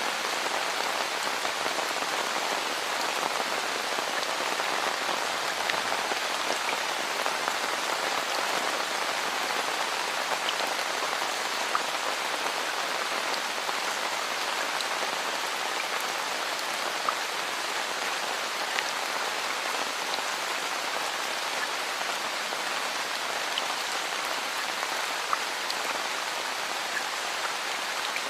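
Steady rain falling, an even patter with scattered sharper drops standing out here and there.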